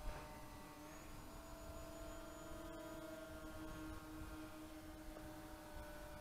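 Faint, steady drone of radio-controlled model airplanes' motors and propellers flying overhead, two main tones drifting slightly in pitch as the planes manoeuvre.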